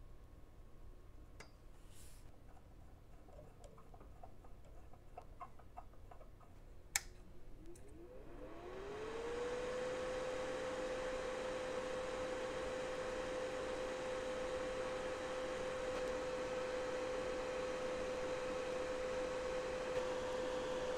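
Faint clicks of a part being handled, with one sharp click about seven seconds in. Then a small electric fan motor starts up: its whine rises for about a second and settles into a steady hum with a rush of air.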